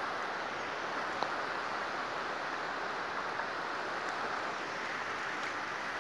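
Fast-flowing, muddy river rushing past the bank: a steady, unbroken hiss of moving water, with one faint click about a second in.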